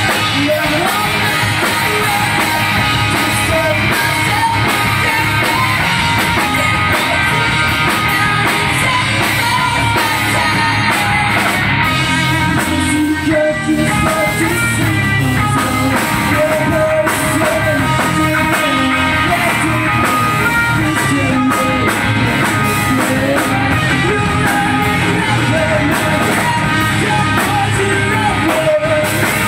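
Live rock band playing: electric guitars, bass guitar and a Ludwig drum kit, with a male lead singer singing over them.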